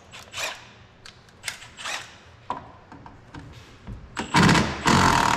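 Light clicks and knocks of parts being handled, then two short, loud blasts from a compressed-air blow gun near the end.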